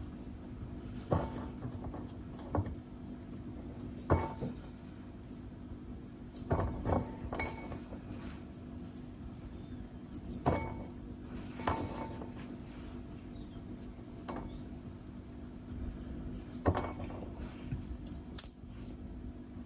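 Scattered light clicks and taps, about eight or ten of them, as walnut pieces are picked from a ceramic bowl by hand and pressed onto a buttercream-covered cake. A steady low hum runs underneath.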